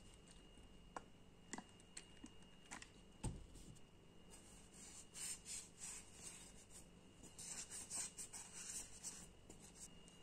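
Faint handling noise: a few light taps and clicks of the bare metal pistol frame in the first few seconds, then a cloth rubbing and wiping over it in soft patches.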